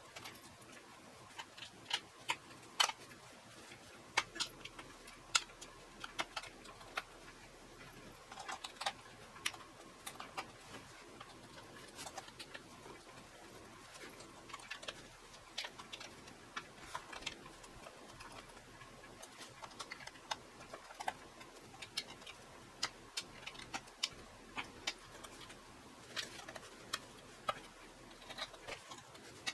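Faint, irregular small metallic clicks and ticks of a small Phillips screwdriver working the bottom-case screws out of a MacBook Pro.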